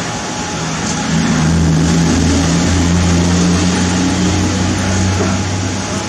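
A low engine hum, like a motor vehicle running close by, swells about a second in, holds steady, and fades near the end, over constant background noise.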